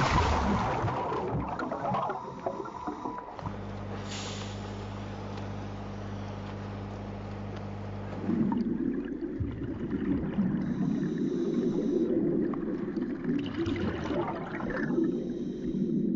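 A boat's engine idling with a steady low hum, broken at the start by a few seconds of splashing water. About eight seconds in the hum gives way to a continuous rush of bubbling water that lasts to the end.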